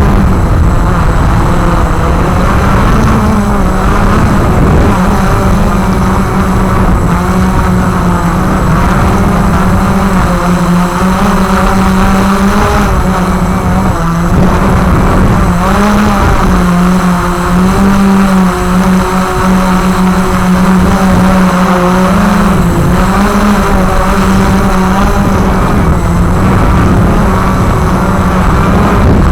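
Walkera QR X350 Pro quadcopter's brushless motors and propellers buzzing in flight, a strong low hum whose pitch keeps shifting up and down as the throttle changes.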